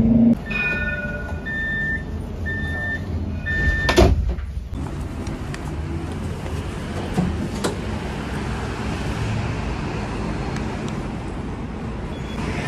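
Tram door warning signal: a short two-note chime, then four evenly spaced high beeps about a second apart. A loud knock comes about four seconds in, followed by the steady rumble of the tram and platform.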